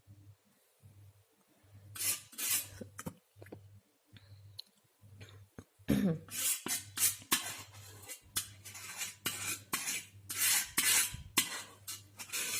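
Steel painting knife scraping and tapping against a palette as acrylic paint is mixed and picked up, in short irregular strokes that come sparsely at first and thickly through the second half.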